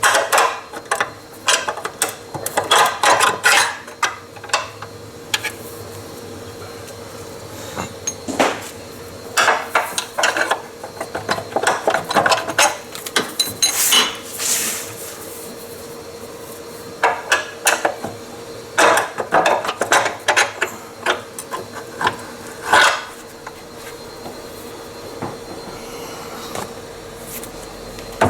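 Metal hand tools clicking and knocking in short bursts with pauses between, as bolts are started into a replacement CVT housing.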